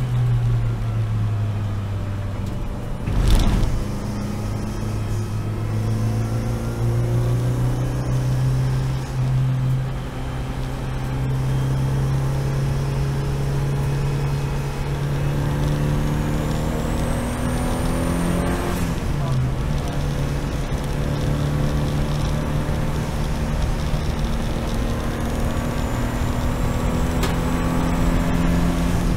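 Seat Leon race car's engine running under steady load, its pitch drifting slowly upward. A single sharp thump comes about three seconds in, and the pitch drops briefly at about nineteen seconds.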